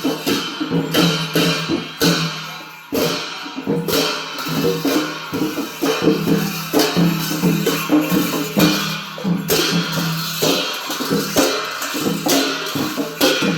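Traditional Newar percussion music for a Lakhey dance: drums and cymbals playing a driving, repeated rhythm.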